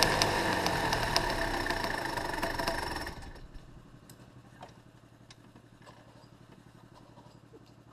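Two-stroke kart engine running at low revs with a light rattle, fading as the kart coasts, then cutting off abruptly about three seconds in as it is switched off. A few faint clicks follow.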